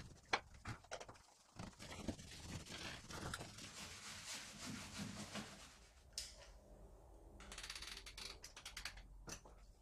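Small brush scrubbing liquid rust treatment onto a car's bare steel rear panel: faint, irregular scratchy strokes, with a quick run of clicks about three-quarters of the way through.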